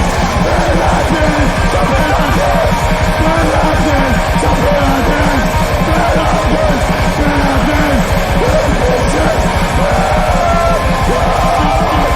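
Loud punk rock music with a fast, driving beat and guitar.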